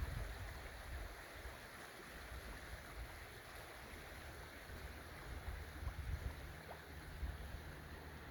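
Faint, steady outdoor rush, with wind rumbling on the microphone in gusts, strongest at the start and again from about five seconds in.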